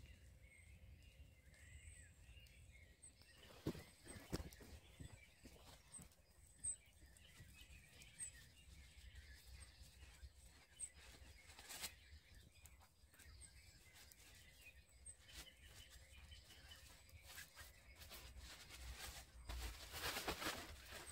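Faint woodland ambience with birds chirping, a few scattered handling clicks, and near the end the rustle of a nylon poncho being shaken out and unfolded.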